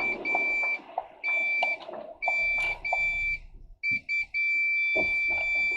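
Vehicle reversing alarm sounding: a steady high-pitched beep that comes in stretches of about half a second with short gaps, ending in one longer unbroken tone near the end.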